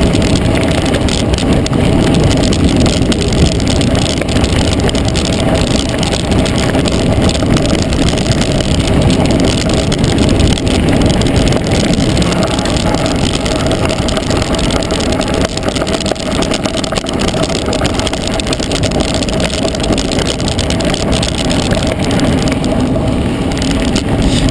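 Mountain bike rolling fast downhill on a gravel dirt road: a steady, loud rumble of the tyres on gravel and the rattle of the bike, mixed with wind on the camera microphone.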